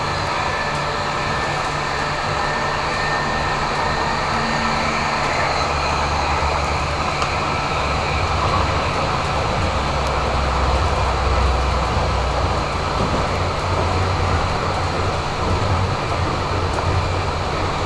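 Tram running along its track, heard from inside the driver's cab: a steady rumble of wheels on rails with a low hum, growing slightly louder about two-thirds of the way through.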